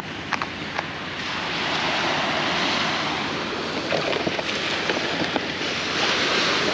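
Surf washing onto the beach with wind on the microphone, swelling twice, and a few light clicks of plastic bait tubs being handled.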